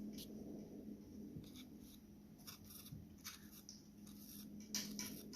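Soft toothbrush scrubbing the dusty blades and shaft of a laptop cooling fan, in short irregular scratchy strokes that loosen the hair and dust. A low steady hum runs underneath.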